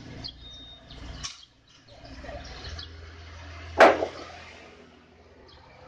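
A wooden plank knocked down onto a stack of planks, one sharp wooden clack about four seconds in.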